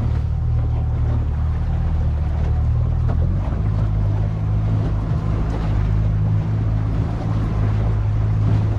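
A small boat's motor running steadily, its note shifting slightly a little over three seconds in, with wind and water noise over it.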